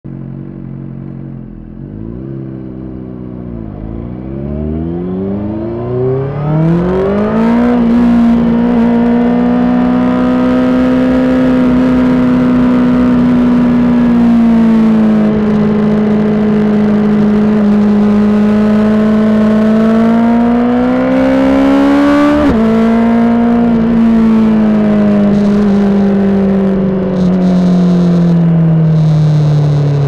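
Honda CBR600RR inline-four sport-bike engine, heard through an aftermarket Toce exhaust, under way on the road. The revs climb in steps over the first several seconds, hold fairly steady, rise again and drop sharply at a quick upshift a little over 22 seconds in, then fall away steadily near the end as the bike slows.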